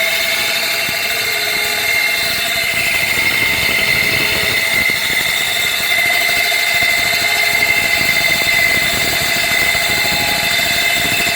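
Metal lathe running steadily with an alloy car wheel mounted on it, giving a constant machine noise with a steady high whine.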